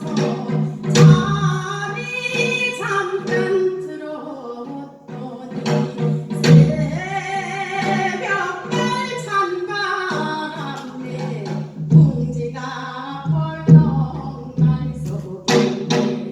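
A woman sings a Gyeonggi minyo folk song with a wavering vibrato, accompanied by strokes on a janggu hourglass drum.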